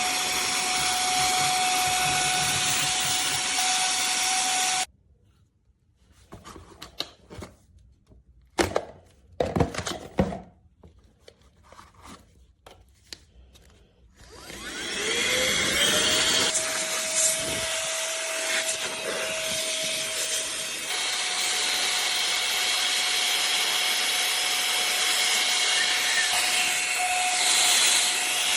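Tiazhan cordless handheld vacuum and air blower running, a steady motor whine over rushing air, switched off abruptly about five seconds in. A few handling clicks and knocks follow. About fourteen seconds in it starts again, its whine rising as the motor spins up and then holding steady, stepping slightly higher in pitch about twenty-one seconds in.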